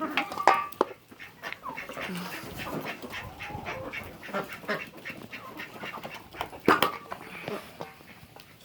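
Backyard ducks quacking, with other poultry calling, among a run of short clicks and knocks, the loudest about two-thirds of the way in.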